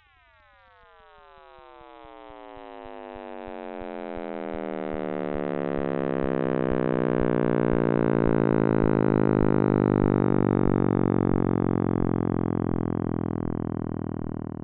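Electronic space-sound sonification: an eerie drone with many overtones gliding steadily downward in pitch. It fades in slowly from near silence, swells over several seconds, then cuts off near the end.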